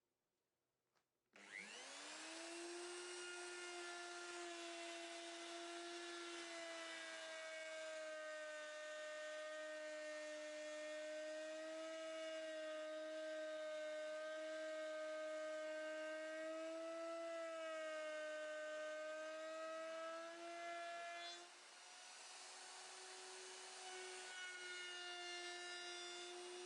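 An electric power tool's motor spins up about a second in, its whine rising quickly, then runs steadily with its pitch wavering slightly under changing load. It dips briefly near the end before carrying on.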